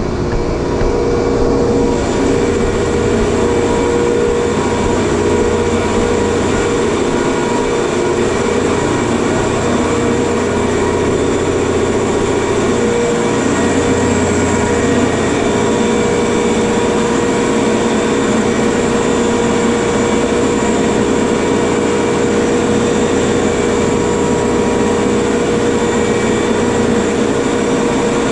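Running machinery in an ammonia refrigeration compressor room: a loud, steady drone with a constant hum and a few steady whining tones that never change.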